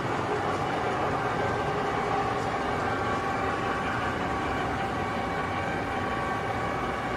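Large Timemaster gap bed engine lathe running under power, a steady mechanical hum with a constant gear whine in its headstock and gearing.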